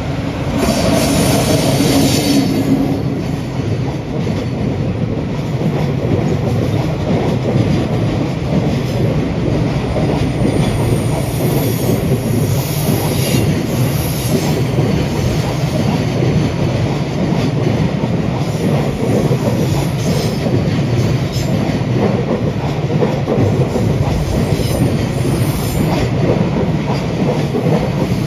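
Freight train hauled by an EF65 electric locomotive passing at close range: a steady rolling rumble of wagons with wheels clicking over rail joints, loudest in the first couple of seconds.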